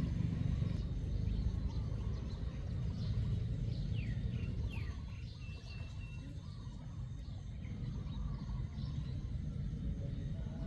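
Steady low outdoor rumble with a few short, falling bird chirps about four to five seconds in.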